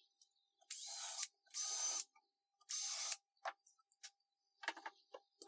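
Cordless drill with a self-centering bit run in three short bursts, marking the screw holes for a hairpin leg's mounting plate. A few light clicks and knocks follow as the metal leg is handled.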